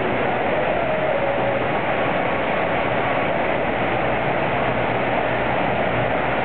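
Steady rush of water pouring over an artificial standing-wave surf ride, the pumped sheet of water running without a break.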